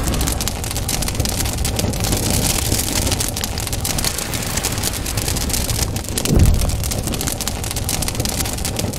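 Intro sound effects of crackling fire and gushing water: a steady hissing rush full of fine crackles, with a low thump about six and a half seconds in.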